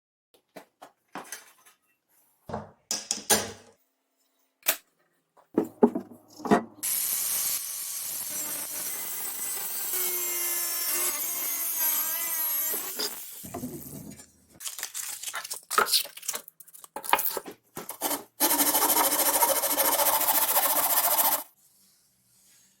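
Workshop handling knocks and clatters, then about six seconds of a power tool cutting into a plate, with a wavering whine in its second half, more knocks, and a second three-second spell of the power tool cutting.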